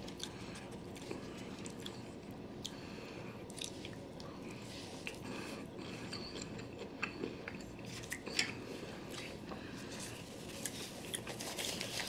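Close, quiet chewing of a mouthful of sushi roll: soft wet mouth sounds with small scattered clicks. Near the end a paper napkin rustles as it is handled.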